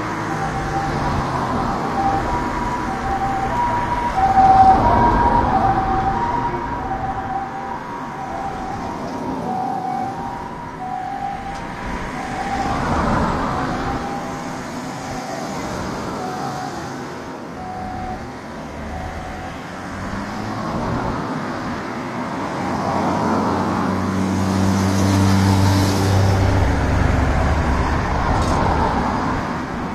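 Two-tone emergency vehicle siren alternating between a high note and a lower note, fading out about halfway through, over road traffic. A vehicle engine rumbles near the end.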